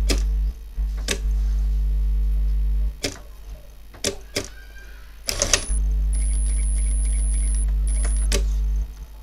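Industrial lockstitch sewing machine working on a small fabric tab: sharp mechanical clicks come singly and in a short cluster about halfway through, over a steady electrical hum. A faint high whine runs with breaks in the second half.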